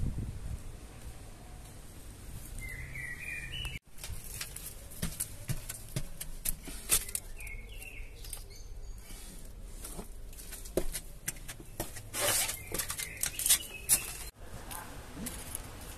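Small birds chirping a few times, short high chirps, over scattered light clicks and rustles.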